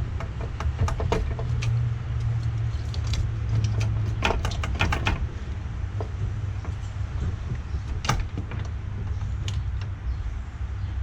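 Light metal clicks and rattles as a valve cover is worked loose from the engine, bunched about a second in and again around four to five seconds in, over a steady low hum.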